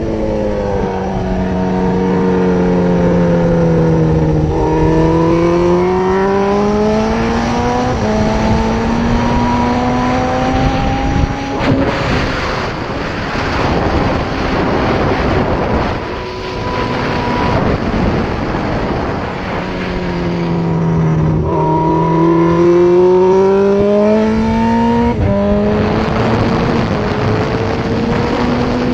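Suzuki GSX-R1000 K6 inline-four engine on track, heard through a helmet-mounted camera with heavy wind rush. The revs fall as the bike slows, then climb in steps, with a drop in pitch at each upshift. Between about 12 and 20 seconds in, wind noise mostly covers the engine; then the revs fall and climb through the gears again.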